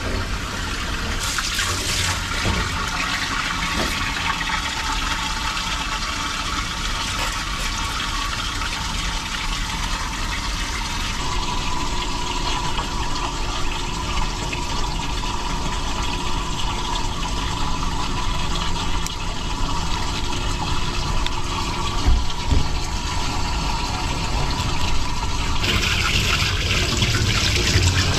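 Steady rush of running water, a little louder and hissier near the end.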